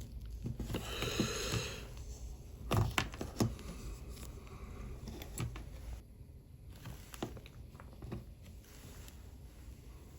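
Faint scattered clicks and taps of small watchmaking tools handling a watch movement, with a short breath about a second in.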